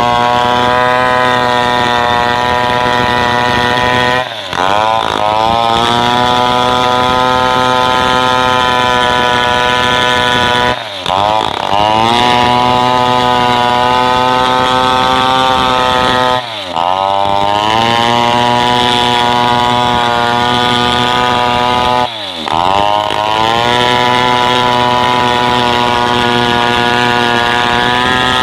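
Two-stroke chainsaw running near full throttle while ripping lengthwise along a sengon log. Four times, roughly every six seconds, the engine briefly drops in pitch and climbs back up.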